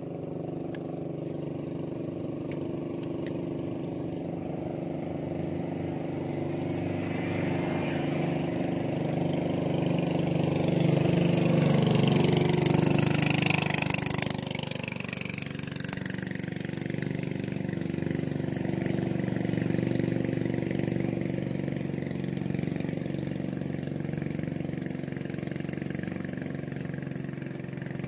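Small motorboat engine running steadily as the boat passes, growing louder to a peak about twelve seconds in and then fading, with a smaller swell later on.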